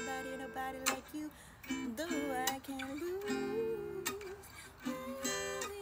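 Music: acoustic guitar strumming held chords, with a few sharp strokes between them.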